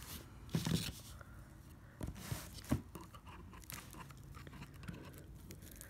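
Faint handling of a cardboard box and its packaging: scattered rustles and crinkles with a few sharp taps, the clearest about half a second, two seconds and nearly three seconds in.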